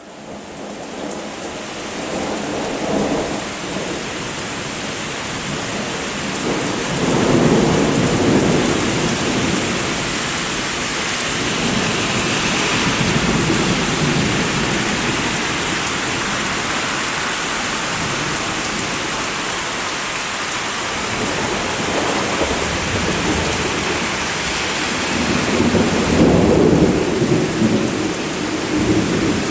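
Thunderstorm: steady heavy rain with rolling thunder that swells several times, loudest about a quarter of the way in and again near the end.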